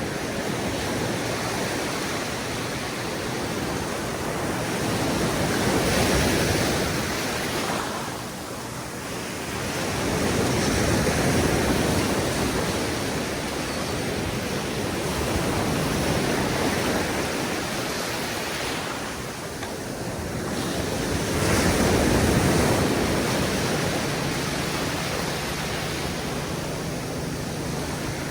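Atlantic ocean surf: waves breaking and washing up a sandy beach in a steady rush that swells and eases about every five seconds.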